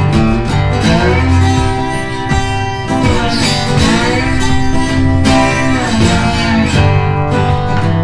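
Background music: acoustic guitar in a country or bluegrass style, strummed and plucked at a steady level.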